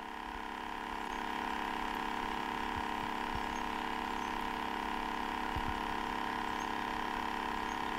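Steady electrical hum, a whine made of several tones at once, with a few faint low knocks.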